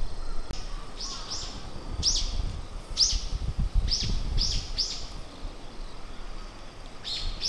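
A small bird calling: a run of short, sharp chirps, each sliding quickly downward in pitch, about nine over the first five seconds and two more near the end.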